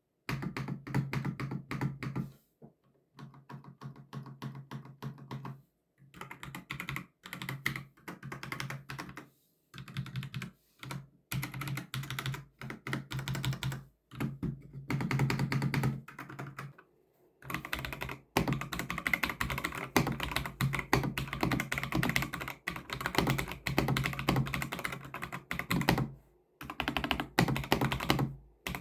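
Typing on a Myria MG7538 mechanical keyboard: fast runs of key clicks in bursts of a few seconds, broken by short pauses.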